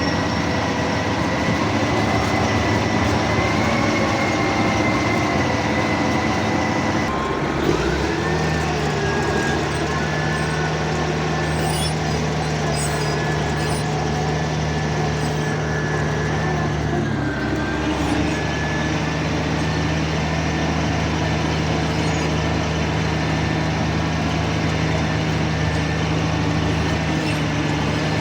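A bulldozer's diesel engine running steadily under work, with a thin high whine over it; the engine note shifts and settles at a new steady pitch about eight seconds in, and changes again briefly near eighteen seconds.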